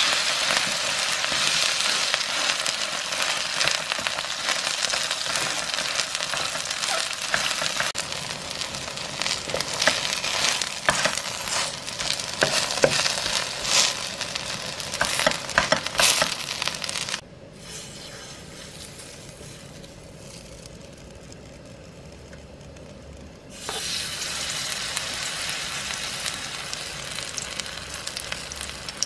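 Garlic chive pancake (buchujeon) sizzling as it fries in oil in a nonstick pan, with scrapes and clicks from a wooden spatula pressing and turning it through the first half. About two-thirds of the way in, the sizzle drops much quieter for around six seconds, then comes back as fresh batter fries.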